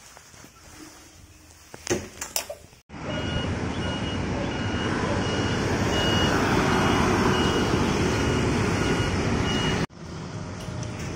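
A few handling clicks in a quiet room, then from about three seconds in loud road-traffic noise with an electronic beep repeating two to three times a second, which cuts off about ten seconds in.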